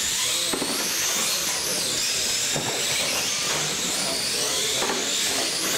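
Radio-controlled monster trucks racing: the high whine of their electric motors and gears, rising and falling in pitch as the throttle changes.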